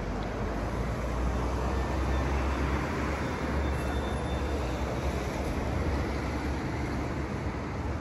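Steady city street traffic noise: a low engine rumble from a passing vehicle over a constant hiss of road noise.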